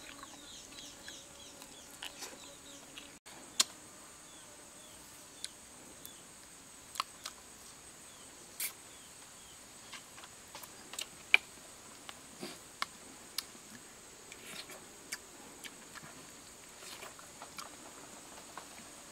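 Steady high-pitched insect drone, with scattered sharp clicks and cracks from handling and eating a spit-roasted chicken: tearing the crisp skin and meat and chewing.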